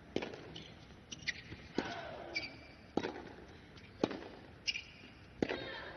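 A tennis rally on a hard court: racket strikes on the ball about once a second, sharp and crisp, with the ball bouncing between them.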